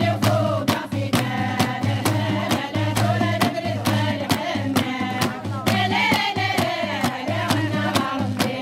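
A chorus of women singing a Kabyle urar festive song together, over hand-clapping and frame-drum strokes in a steady rhythm of about three to four beats a second.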